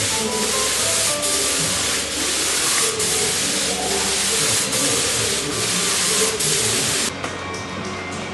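Background music with a steady beat, over a loud steady hiss that cuts off abruptly about seven seconds in.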